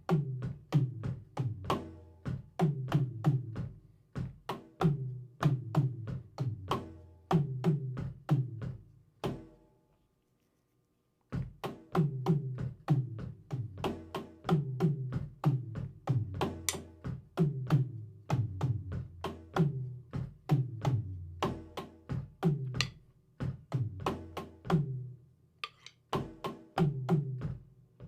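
A drum kit played in a steady, repeating beat, with deep drum hits under sharp cymbal or stick strokes. The playing stops dead for about two seconds roughly a third of the way in, then starts again.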